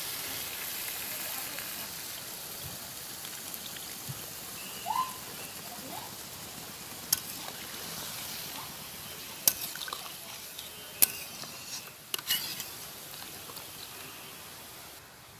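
Watery spice mixture poured into a hot metal kadai of fried bottle gourd pieces, sizzling with a steady hiss that slowly fades. In the second half a metal ladle stirs the curry and clinks sharply against the pan several times.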